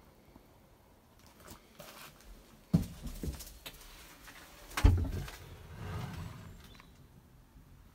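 Two dull knocks about two seconds apart, the second louder, followed by a low rustling shuffle.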